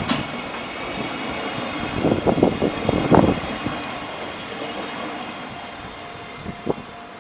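Electric train passing over a level crossing on the JR Tokaido Main Line and moving away, its rumble fading. A few knocks from the wheels over rail joints come about two to three seconds in.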